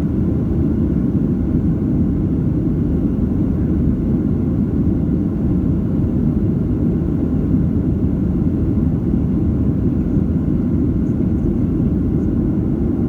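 Steady low rumble inside a Boeing 737-700 cabin during the climb: the CFM56-7B engines at climb thrust and the airflow over the fuselage.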